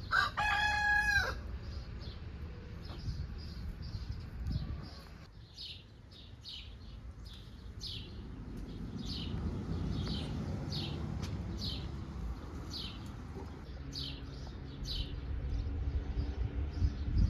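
A rooster crows once, briefly, at the start. Then a small bird chirps over and over, short high notes about two a second, over a low rumble.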